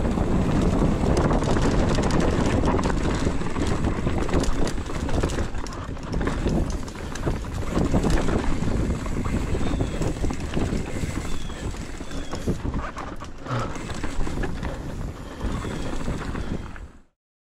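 Mountain bike ridden fast down a dirt trail, heard from the rider's camera: tyre noise on dirt with a constant clatter of chain and frame rattling and knocks over bumps, and wind on the microphone. It cuts off suddenly near the end.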